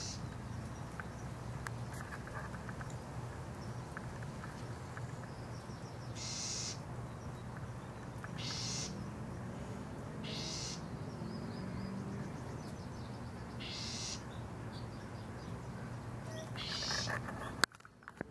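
Birds calling outdoors: about five short high calls a few seconds apart over a steady low hum, with a sharp click near the end.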